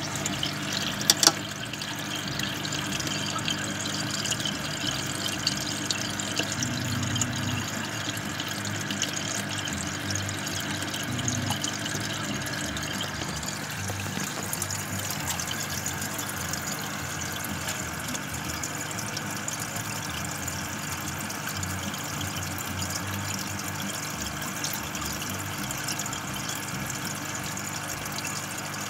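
Aquarium air stone bubbling steadily, with a couple of sharp knocks about a second in.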